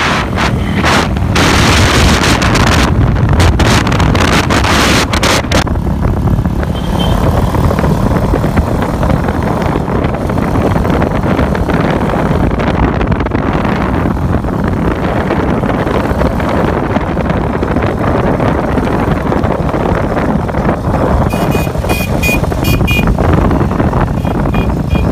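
Modified Hero Honda Karizma's 223 cc single-cylinder engine running through a large aftermarket muffler as the bike is ridden along the road, with wind buffeting the microphone in the first few seconds. Near the end there is a run of short, rapid high beeps.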